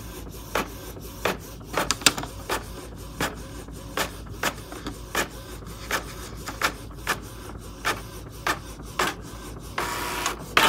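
Canon inkjet printer printing a page, its mechanism clicking sharply about twice a second. Near the end a louder steady whir starts.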